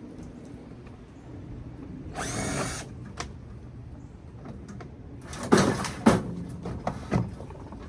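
Power drill or driver running in short bursts while taking apart a microwave oven, with sharp knocks of metal parts between them.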